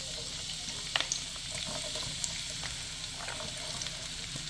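Diced onion and red bell pepper sizzling in hot oil as they are dropped by hand into a square nonstick skillet, with a few light clicks.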